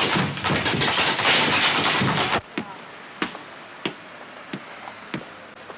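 A loud clatter for about two seconds that stops abruptly. Then comes a steady series of sharp knocks, about three every two seconds: a paver's hammer tapping stone paving slabs into place.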